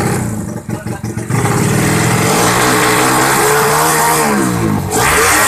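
Honda Supra motorcycle engine, set up to about 130 cc, revving loudly. It runs unevenly for about a second, then comes in hard and is blipped up and down several times, pitch rising and falling with each rev.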